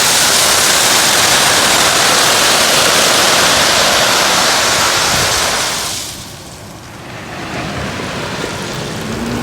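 Loose rock pouring out in a loud, steady rushing hiss like running water, which falls away about six seconds in, leaving a lower rumble.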